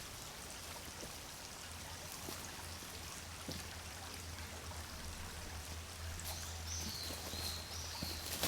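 Steady outdoor background noise with a faint low hum; from about six seconds in a bird calls with a high, wavering whistle.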